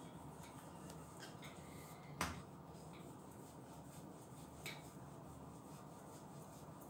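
Faint rubbing of a wooden rolling pin rolling out dough on a board, with two light clicks, one about two seconds in and one near five seconds.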